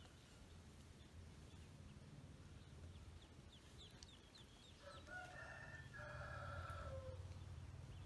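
A rooster crows once, starting about five seconds in and lasting around two seconds, faint over a low steady hum. A few faint short high peeps come just before it.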